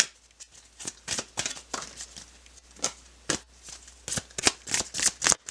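A deck of oracle cards being shuffled by hand: a run of quick papery flicks and snaps, coming thicker near the end.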